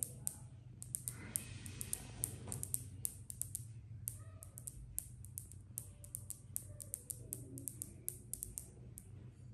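Rapid, irregular sharp clicks, several a second, over a low steady hum.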